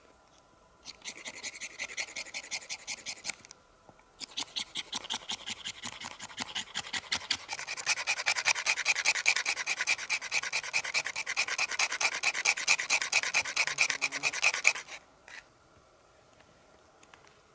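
Fast, even rasping strokes, about five a second, like a blade or file working back and forth on a hard material. They come in two runs with a short pause between, and the second run is the louder and longer one.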